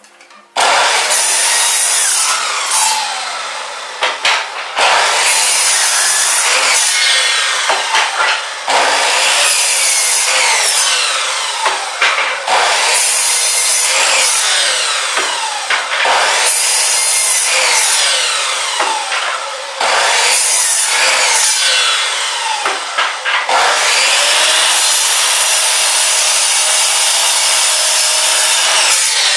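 Chop saw cutting wood: a loud, dense cutting noise that starts suddenly about half a second in and carries on, with short dips every few seconds and shifting pitch as the blade works through the wood.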